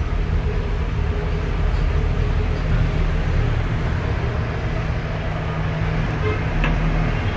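Steady low mechanical rumble with a constant hum underneath, holding at an even level throughout.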